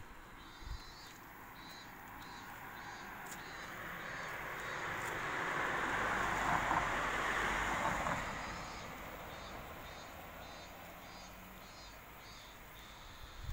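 A vehicle passing on the street: a broad rushing noise swells up over a few seconds, peaks about halfway through, and fades away. A faint high pulse repeats a little under twice a second behind it.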